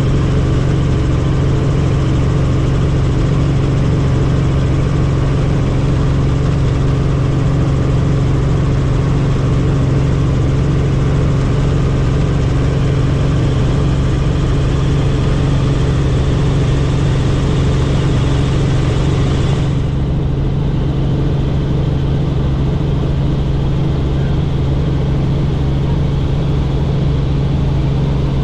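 Helicopter in flight heard from inside the cabin: a loud, steady drone of rotor and engine with a strong low hum. About twenty seconds in, the hissy upper part of the sound drops away suddenly while the drone carries on.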